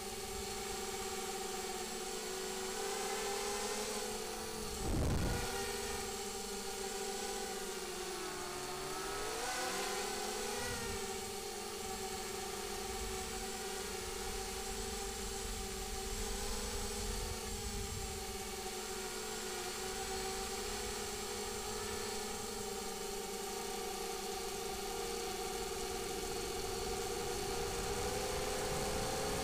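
Multirotor drone's electric motors and propellers whining steadily, heard close up from a camera on board. The pitch dips and climbs back with the throttle around eight to ten seconds in, and a short burst of noise comes about five seconds in.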